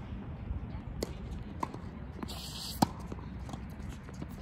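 Tennis ball hit by racket strings and bouncing on a hard court during a doubles rally: a few sharp pops, the loudest about three seconds in.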